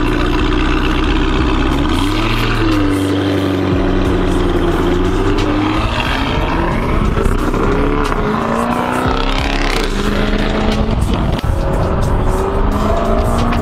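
Lamborghini Urus twin-turbo V8 with a Fi valvetronic exhaust and race downpipes, driving and accelerating hard. The engine note holds steady, then rises in several sweeps with gear changes between them.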